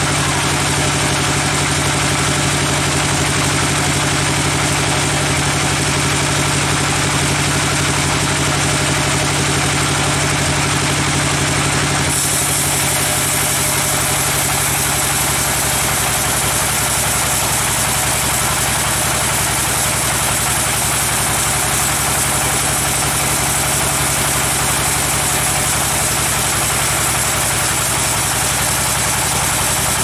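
Sawmill band saw running with a steady machine drone. About twelve seconds in the sound changes suddenly and a high-pitched hiss joins it as the blade saws through a slab of very hard wood.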